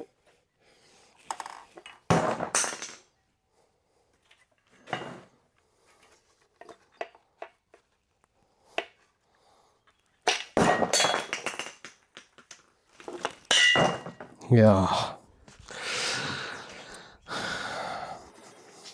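Metal engine parts clinking and knocking at irregular intervals as a connecting rod cap, stuck to its heat-damaged rod bearing, is worked off the crankshaft.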